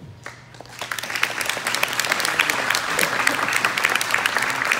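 Audience applause: clapping starts about a second in and quickly builds to steady applause.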